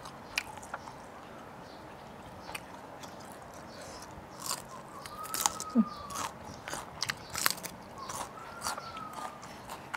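Close-miked crunching and chewing of a raw yardlong bean, a run of crisp crunches starting about four seconds in, after a few soft chewing clicks.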